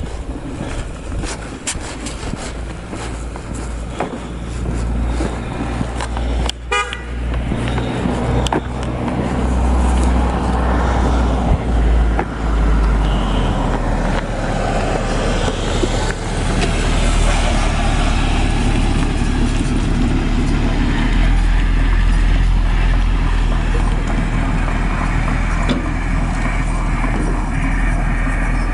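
A motor vehicle's engine running over a steady low rumble, growing louder from about ten seconds in and staying loud.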